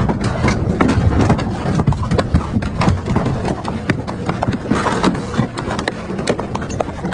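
Double-shaft shredder crushing and tearing a plastic jerrycan: a rapid, irregular run of cracking and snapping plastic over the low rumble of the running cutter shafts. The cracking thins out a little near the end as the last scrap is pulled through.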